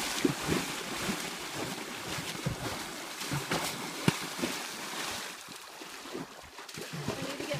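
Horses wading and splashing through shallow lake water, their hooves churning and slapping the water in quick irregular splashes. The splashing is busiest through the first five seconds and thins out after.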